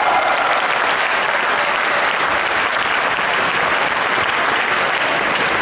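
Audience applauding steadily at the end of a badminton rally.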